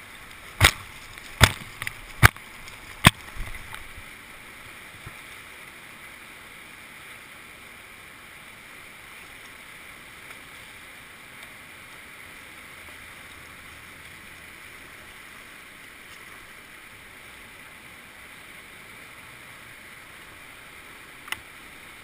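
Whitewater rapids rushing steadily. Four sharp knocks come close together in the first three seconds, and one more near the end.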